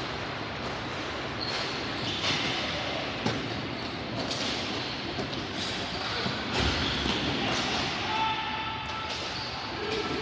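Ball hockey play: sticks striking the plastic ball and the ball knocking on the playing surface, a scattered series of sharp knocks over steady background noise.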